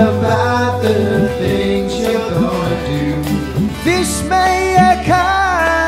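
A man singing to a strummed acoustic guitar, the voice coming in strongly with held notes about four seconds in.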